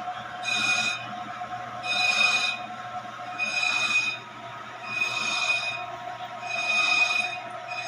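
Brake lathe turning a brake drum slowly while its automatically fed cutting tool shaves the drum's braking surface during resurfacing. A high screech from the cut swells and fades about every second and a half over the machine's steady hum.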